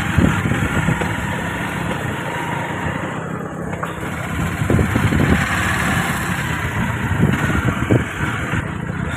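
Motorcycle engine running at a steady pace while riding, with a noisy rush of wind over it.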